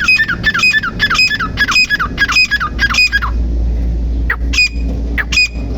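A female grey francolin (tetar) calling: a rapid run of short, harsh, downward-sliding notes, about three a second. The calls break off for about a second and then start again. A steady low hum runs underneath.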